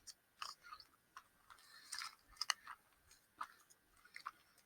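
Chewing a tough gummy candy, the gummy lettuce piece of a gummy burger: faint, irregular wet mouth clicks and smacks.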